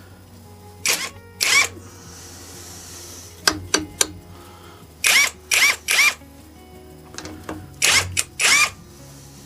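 A small power tool runs in about a dozen short spurts with pauses between them, spinning loosened cylinder head nuts off an air-cooled VW 1200 40 hp engine.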